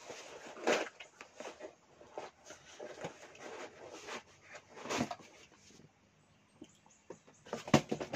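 Cardboard box being opened and handled: irregular rustling and scraping of the flaps, with a few sharper knocks, the loudest near the end as a smaller box is lifted out.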